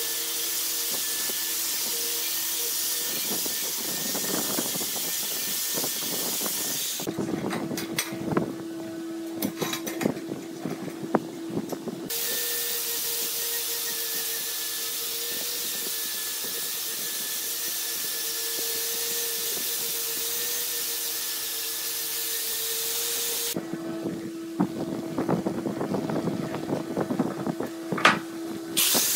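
Angle grinder with a buffing wheel running against a steel axe head cut from a motorcycle brake disc: a steady motor whine under a loud hiss. Twice, about seven seconds in and again near the end, the hiss drops away for several seconds and only a lower whine remains, with knocks and rubbing sounds.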